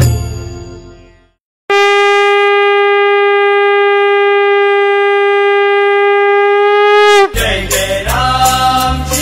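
The previous devotional music fades out, and after a brief gap a conch shell (shankh) is blown in one long, steady, loud note. The note lasts about five and a half seconds and sags slightly in pitch as it ends. A new bhajan's music with a drum rhythm then starts near the end.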